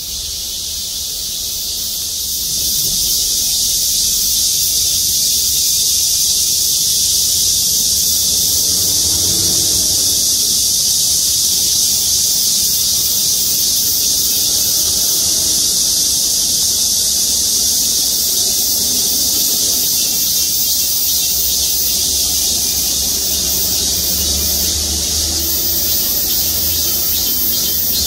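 A chorus of cicadas singing: a loud, steady, high-pitched buzzing hiss that fades in over the first two seconds. A low rumble runs underneath and grows stronger in the last few seconds.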